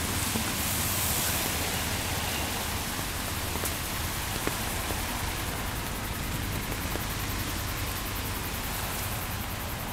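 Steady hiss of rain falling, with a low steady rumble underneath.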